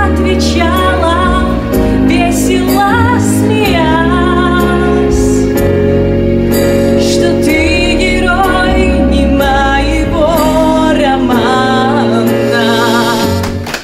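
A woman sings a slow ballad with wide vibrato into a microphone over instrumental accompaniment with sustained chords and bass. The song ends just before the close.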